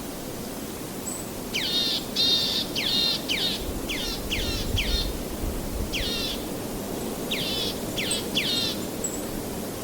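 A bird gives a series of short, harsh calls that sweep downward in pitch. They come in quick clusters from about a second and a half in until near the end, over a steady rushing background noise.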